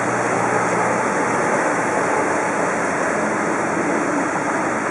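Canal water churning and rushing in a motor boat's wake, a steady wash, with a faint low engine hum underneath.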